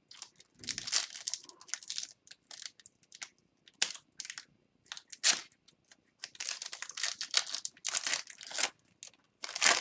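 The plastic wrapper of an O-Pee-Chee Platinum hockey card pack being torn open and crinkled by hand, in a string of irregular sharp crackles.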